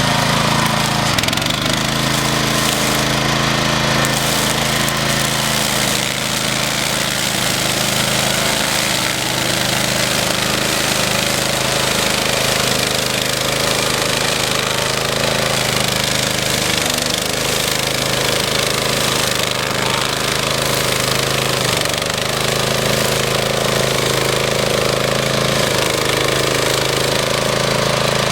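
Power Dog brush mower's 9 hp Honda engine running steadily.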